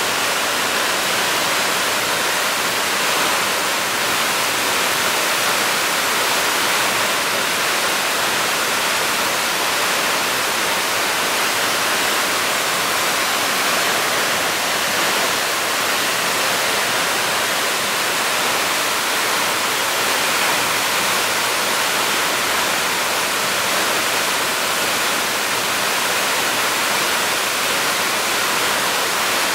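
A 23 m waterfall with a heavy flow of water, pouring in a loud, steady rush that does not change.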